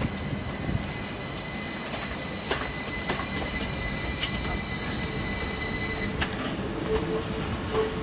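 Train wheels squealing: a steady high-pitched squeal over the low rumble of a train on the track. The squeal stops about six seconds in and the rumble goes on.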